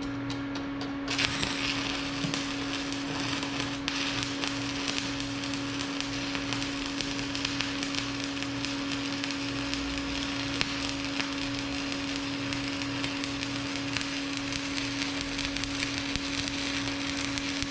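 Stick welding arc crackling and sputtering steadily with many sharp pops, starting about a second in, over a steady hum.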